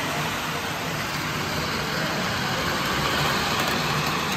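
Lionel O-scale 773 New York Central 4-6-4 Hudson model steam locomotive running along the track, its motor and wheels making a steady rumble that grows a little louder as it nears.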